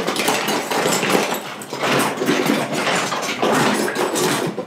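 Metal kitchen utensils clattering and clinking in a crowded drawer as it is rummaged through by hand: a dense, continuous rattle.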